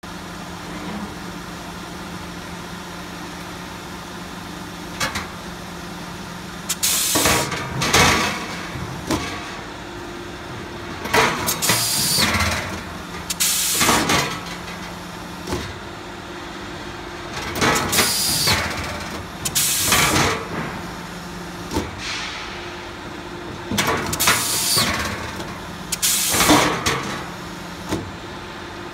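Machinery running with a steady low hum, broken from about seven seconds in by loud, short hissing bursts every couple of seconds.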